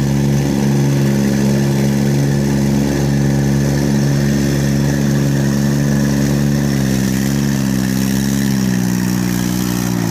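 Yanmar C30R crawler carrier's diesel engine running steadily as the loaded tracked dumper drives, its note dropping slightly near the end.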